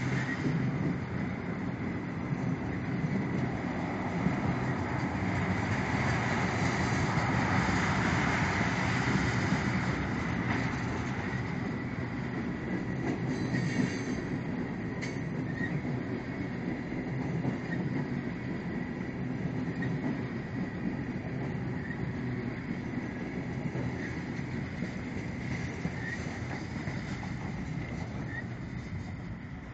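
Norfolk Southern freight train's cars rolling past at close range, wheels clattering over the rail joints with a high wheel squeal, and a sharp clank about halfway through. The sound drops off near the end as the last car goes by.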